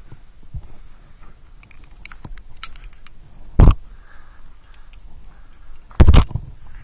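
Climbing gear clinking lightly and small taps and scrapes against the rock. Two loud knocks on the climber's camera break in: one about midway and a quick cluster of several near the end.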